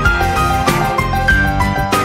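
Background music with a beat and a melody.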